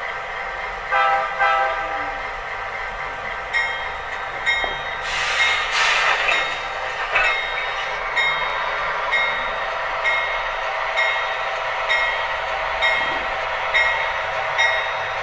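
Sound decoder of an MTH HO-scale CN diesel locomotive model playing through its small onboard speaker: the diesel engine runs steadily, the horn gives two short toots about a second in, and a short burst of hiss comes around the middle. From about three and a half seconds on, the bell rings about once a second, the bell that closes the five-step F4 announcement sequence and must be heard before the locomotive will move.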